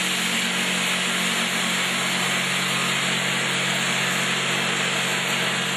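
Vibratory feeder running with a steady buzzing hum, a dense stream of candy pieces rattling and sliding along its stainless-steel tray.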